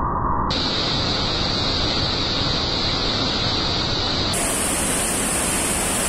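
Palovit waterfall, a high-flow 15 m fall, pouring into its plunge pool: a loud, steady rush of falling water and spray.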